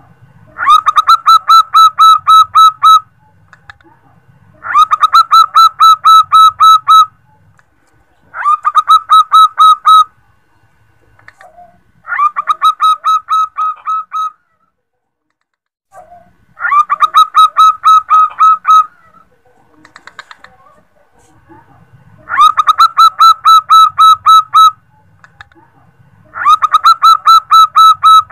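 Female zebra dove (perkutut) calling to a male: seven phrases, each about two seconds of quick, evenly repeated short cooing notes, with a pause of a second or two between phrases. It is the call used as a lure to draw a male.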